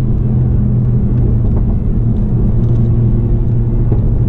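Turbocharged 2.0-litre four-cylinder engine of an APR Stage 2 tuned Mk7 Volkswagen GTI droning at a steady cruise, heard from inside the cabin along with road and tyre noise.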